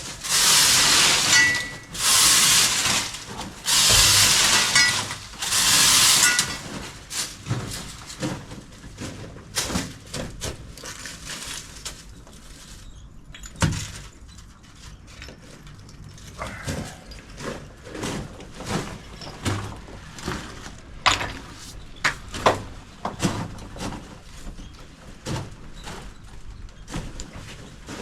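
Paint sprayer spraying in four bursts of hiss, each about a second or a second and a half long, over the first six seconds. After that come scattered quieter knocks and clicks of handling.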